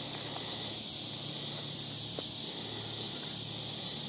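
Steady, high-pitched insect chorus buzzing without a break, with one faint tick about two seconds in.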